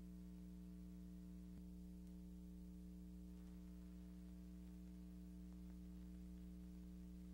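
Near silence: only a faint, steady hum with a light hiss.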